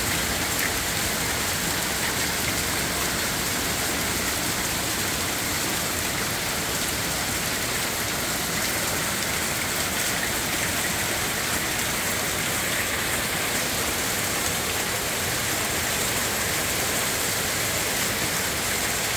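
Torrential rain mixed with small hail falling on a lawn and yard, a dense steady hiss that neither swells nor fades.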